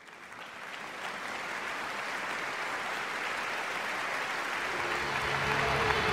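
Large audience applauding, the clapping swelling steadily from a quiet start. Low music comes in underneath near the end.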